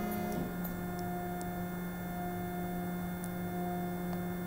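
Stepper motors of a Stratasys Dimension BST 3D printer, driven by a Gecko G540, humming steadily with several pitched tones during a homing sequence. The low tone shifts slightly about half a second in, and a few faint ticks sound over the hum.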